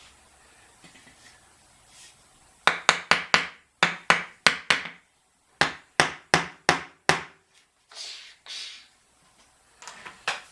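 Hammer striking in quick runs, about sixteen sharp blows in three groups with short pauses between, then a few lighter taps near the end.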